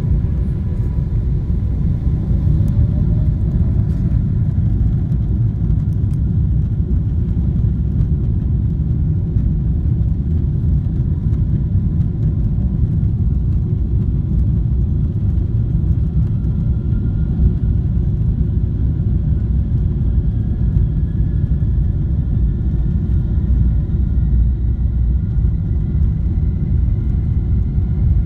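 Steady deep rumble heard inside the cabin of a Boeing 777-300ER rolling on the runway: its GE90 engines and the wheels on the concrete. A faint whine climbs slowly in pitch over the last dozen seconds.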